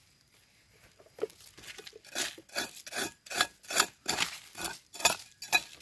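Repeated scraping strokes in dry, gritty soil, about two to three a second, starting about a second in and getting louder: earth being scraped away to uncover buried mushrooms.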